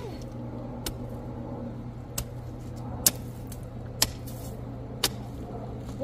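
Metal hoe blade (a jembe) chopping into dry, hard soil, five sharp strikes about a second apart, over a steady low hum.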